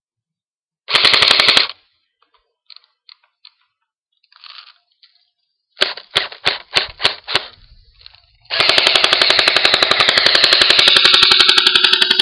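Crosman R72 electric airsoft rifle firing on full auto. A short rapid burst comes about a second in, then a quick string of about six shots, then a long continuous burst of nearly four seconds near the end.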